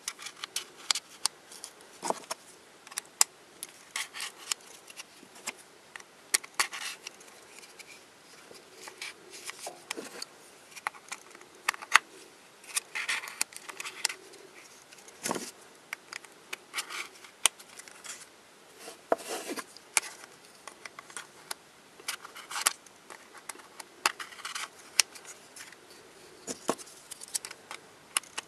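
Hard plastic pieces of a Twist Ball puzzle being handled and fitted together: irregular sharp clicks and snaps, with short stretches of plastic scraping on plastic.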